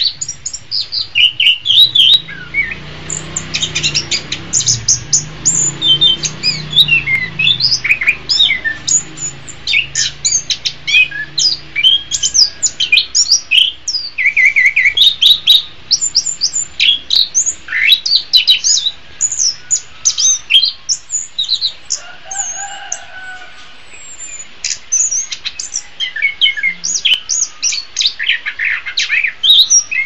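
Chestnut-capped thrush (anis kembang) singing a fast, unbroken run of varied high chirps, whistles and short trills. There is a short break a little past the middle, with one lower note.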